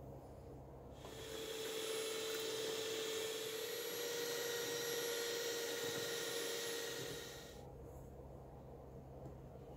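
Nasa electric hand mixer beating egg whites and sugar in a stainless steel bowl. Its motor gives a steady whine and whir that starts about a second in, runs for roughly seven seconds, then cuts off suddenly.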